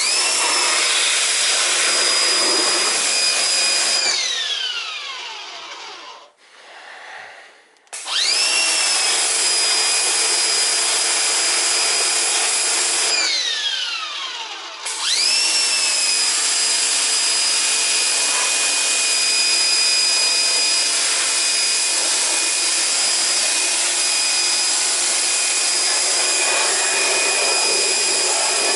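An electric power tool's motor starts with a high whine over a steady hiss, runs, and winds down with a falling whine when it is switched off. This happens three times: short runs at the start and about eight seconds in, then a long run from about fifteen seconds in.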